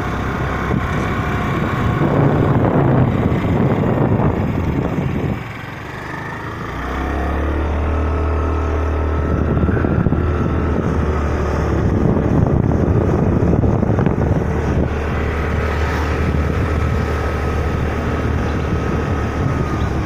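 A vehicle engine running while travelling along a road, with wind rushing over the microphone. About five and a half seconds in the sound briefly drops, then a steady low engine hum with a faint whine carries on underneath the wind.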